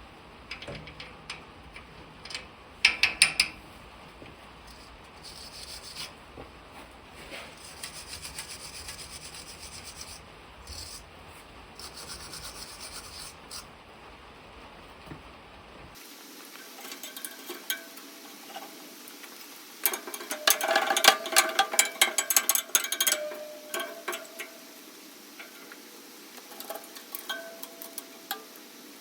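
Hand tools working on the rototiller's blade bolts: scattered metal clicks and scraping, with a short loud clatter about three seconds in and a dense run of rapid clicking in the second half.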